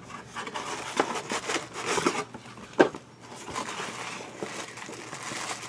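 Paper packaging rustling and crinkling as the contents of a box are handled, with scattered light clicks and one sharper tap about three seconds in.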